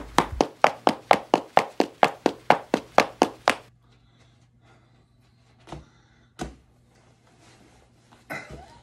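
A quick, even run of about seventeen sharp slaps, about five a second, stopping after three and a half seconds, followed by a few scattered thumps.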